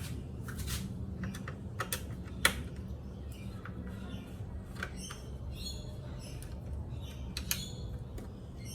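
Scattered light clicks and taps, as of tools and engine parts being handled, the loudest about two and a half seconds in, over a steady low hum. Short high bird chirps come in during the second half.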